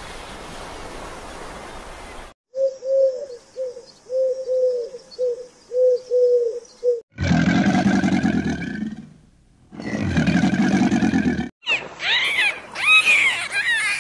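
A run of separate animal sounds. First a steady hiss, then about a dozen short calls repeated about three a second. Then come two long, loud crocodile calls of about two seconds each, and near the end a quick series of rising-and-falling dolphin whistles.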